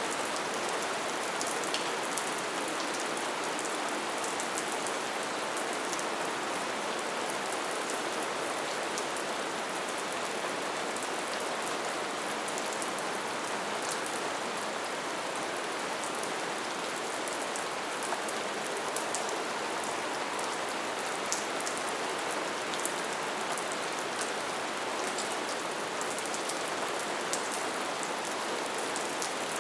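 Light, steady rain falling, an even hiss with scattered individual drop ticks.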